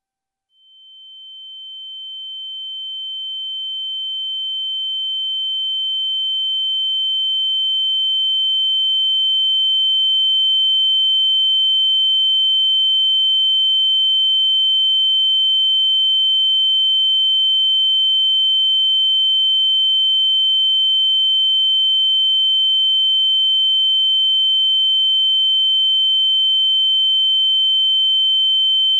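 Ear-ringing (tinnitus) sound effect: a single steady high-pitched electronic tone that fades in over about ten seconds, then holds at a constant level, with a much fainter lower tone beneath it.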